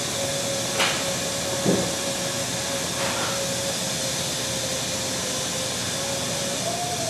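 Steady workshop background noise: an even hiss with a thin steady whine, with a couple of faint clicks.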